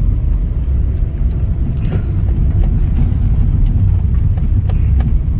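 Steady low rumble of a moving vehicle, with a few faint clicks.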